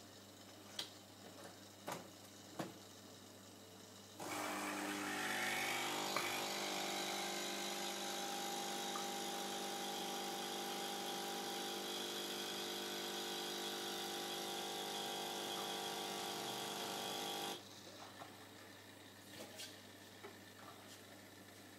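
Nespresso CitiZ capsule machine's pump buzzing steadily while it brews coffee into a cup. It starts about four seconds in, after a few light clicks, and cuts off sharply about thirteen seconds later.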